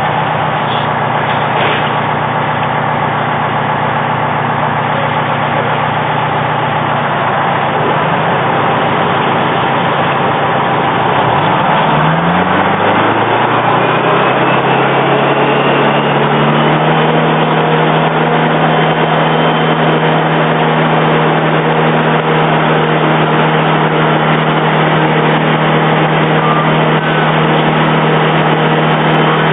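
A fire engine's engine runs steadily at the scene of a house fire. About twelve seconds in it revs up and then holds a higher, steady speed, over a constant background roar.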